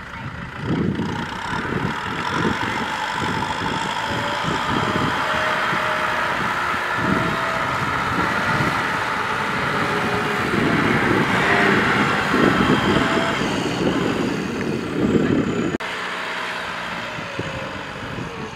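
Kubota M6040SU tractor's diesel engine running as the tractor drives across the rice stubble. The sound drops off sharply near the end.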